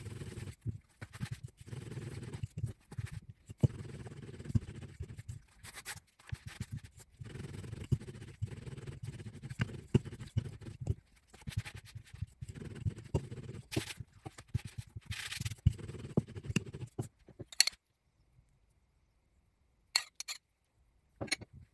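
Wooden rolling pin rolling back and forth over dough on a silicone mat: a low rumbling scrape in repeated strokes of about a second each. It stops about 18 s in, and near the end a metal spoon clinks a couple of times against a bowl as filling is spooned out.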